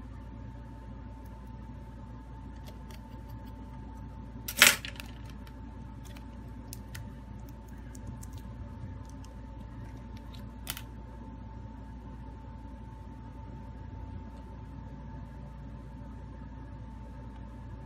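Handling noises on a phone-repair workbench: one sharp clack about four and a half seconds in and a lighter click near eleven seconds, with faint ticks, over a steady hum with a faint high whine.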